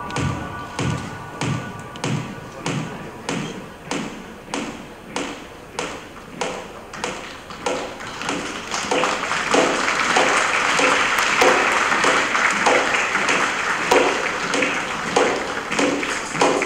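Runway show music with a steady beat. From about eight seconds in, audience applause joins it.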